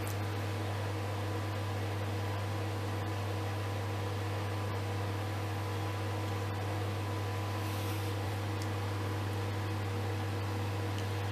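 Microwave oven running, with chocolate bars heating inside: a steady low electrical hum over the even whirr of its fan, unchanging throughout.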